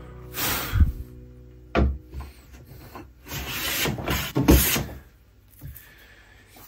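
Hand plane cutting rough oak in several strokes, the longest starting a little past three seconds in and lasting over a second. The blade is taking off shavings as the sawn surface is brought nearly clean.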